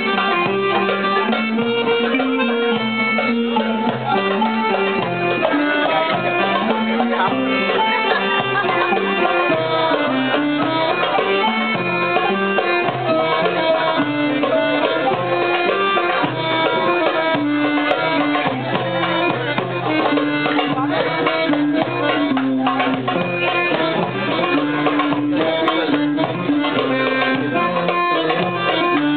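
Live Arabic ensemble music, an oud and other melody instruments over a hand-drum rhythm, playing without a break; the drum strokes get busier in the second half.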